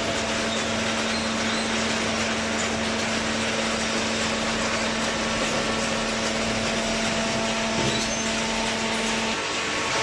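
Baling machinery running steadily: a constant hum over a dense rushing noise, with the hum stopping shortly before the end.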